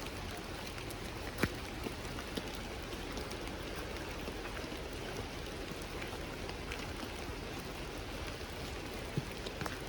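Steady rain falling and pattering on surfaces, with a few sharp ticks of single drops.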